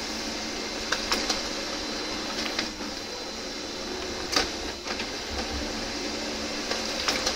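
Brother HL-L2321D laser printer printing two-sided: a steady mechanical whir of the paper feed with several sharp clicks, the loudest about four and a half seconds in, as the sheet is pushed partly out and drawn back in to print its reverse side.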